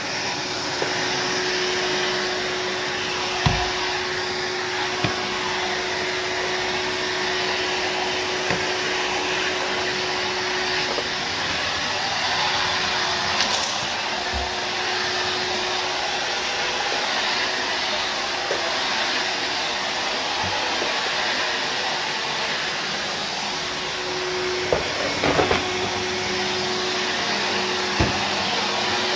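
Numatic Henry HVR200-22 vacuum cleaner running steadily, a constant rush of air with a steady tone under it, and a few short knocks.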